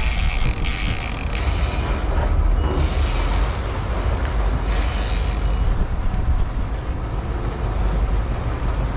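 Fishing reel clicker buzzing in three spurts during the first half as line pays out while baits are set, over the boat's steady low rumble.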